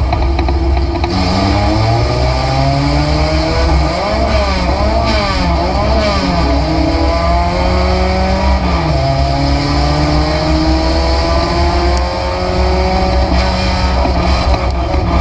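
Race car engine heard from inside the stripped, caged cabin, revving up as the car accelerates. The pitch wavers up and down for a couple of seconds, then drops sharply about nine seconds in, as at a gear change, and climbs again. A constant low drone and road noise run underneath.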